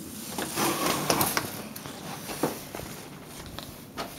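Scraping and knocking as a metal door is pushed open against drifted snow. The scraping is loudest about a second in, with a single sharp knock a little later.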